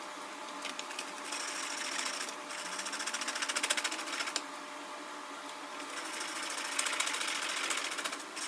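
Wood being turned on a foot-powered spring pole lathe: a rapid, even chatter of the cutting tool against the spinning workpiece, in two stretches of a few seconds with a short pause between.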